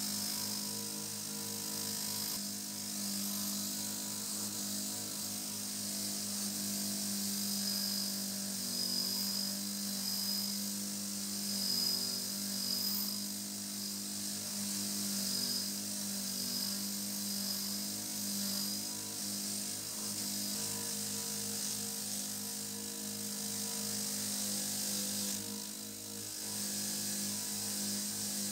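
Pedestal bench grinder with a wire wheel running with a steady motor hum, scrubbing small metal camera housing parts held against it, which adds a scratchy high hiss that swells and eases as the parts are pressed in.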